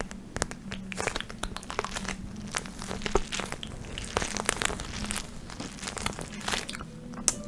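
Close-miked ASMR crinkling and scratching on a pad, a dense run of irregular crackles and small taps, over a faint steady low hum.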